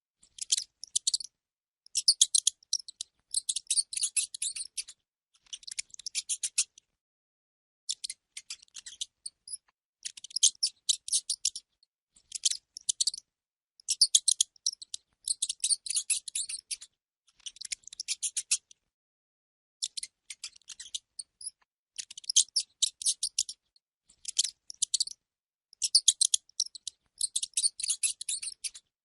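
Rodent sound effect: rapid, high-pitched scratchy chittering in short bursts of about a second, repeating every second or two with brief pauses between.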